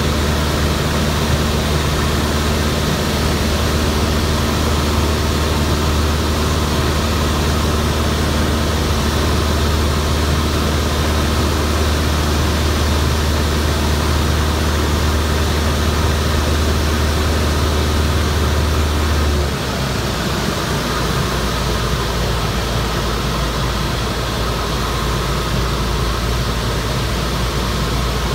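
Jodel D140 single-engine plane on landing approach, heard from inside the cockpit: steady piston engine and propeller drone with airflow hiss. About two-thirds of the way through, the engine note drops lower and slightly quieter as power is pulled back.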